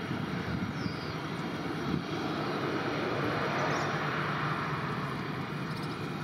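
Airbus A321's jet engines running at taxi power, a steady rushing noise that swells a little midway.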